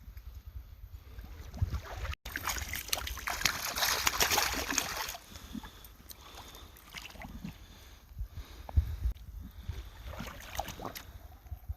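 Wind buffeting the microphone as a steady low rumble, with a few seconds of louder crackling, rushing noise about two to five seconds in.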